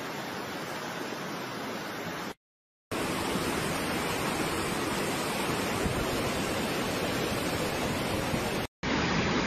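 Muddy floodwater rushing in a torrent, a steady churning noise of water. It cuts to silence for about half a second a little over two seconds in, then comes back louder and fuller, with another brief dropout near the end.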